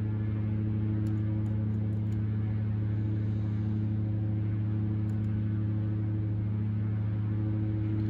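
Steady low electrical hum, made of a few even tones, with a few faint light clicks about a second in and again near the middle.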